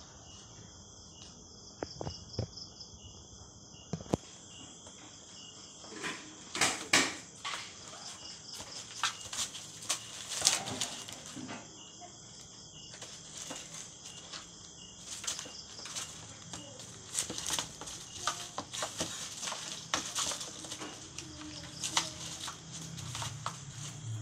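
Shredded paper rustling and crackling in irregular bursts as kittens scramble about in a plastic tub, busier from about six seconds in. Underneath, a steady high chirring of insects.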